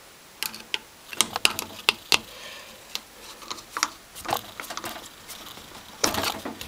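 Irregular light clicks and taps from the rangehood's plastic fan blade being handled and turned on its motor shaft, with a denser cluster of knocks about six seconds in.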